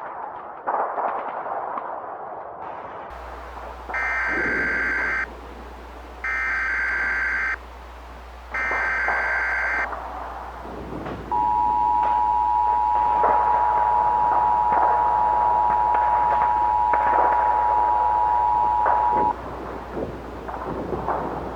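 Emergency Alert System alert opening: three roughly one-second bursts of SAME digital header data, followed by the EAS two-tone attention signal, a steady pair of tones held for about eight seconds. A low hum starts about three seconds in, and crackling, popping noise runs underneath.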